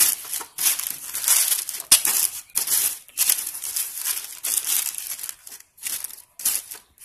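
A sheet of baking paper crinkling and rustling in quick, irregular bursts as hands press and fold it into a metal baking tin.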